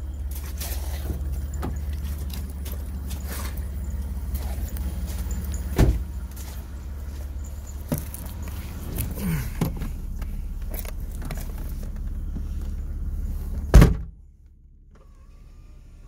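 Knocks and handling noise over a steady low outdoor rumble. Then a car door, the 1996 Mitsubishi 3000GT's, shuts with a loud thud about two seconds before the end. After that the rumble is cut off and only a faint, quiet cabin remains.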